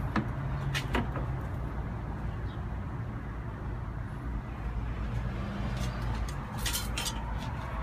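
A steady low mechanical rumble. A few sharp clicks come near the start and about a second in, and a short run of clanks comes about seven seconds in.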